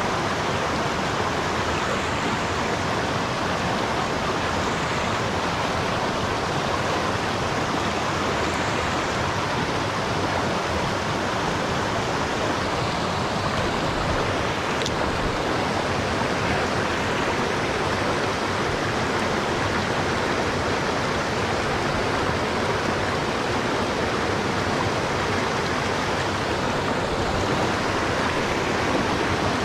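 Steady rush of a rocky mountain stream, with water pouring over a small cascade and through a riffle.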